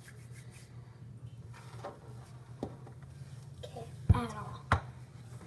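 Faint murmured voices over a low steady hum, with two sharp knocks about four and four and a half seconds in.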